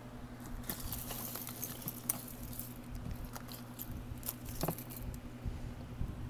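Costume jewelry (bead necklaces, chains and watches) clicking and jangling in a plastic tub as a hand digs through it: a run of small, irregular clicks and rattles that dies down near the end.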